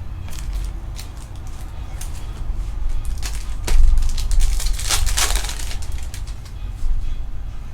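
Crinkling and crackling of Prizm card pack wrappers and cards being handled, with a dense run of sharp crackles midway and a steady low hum underneath.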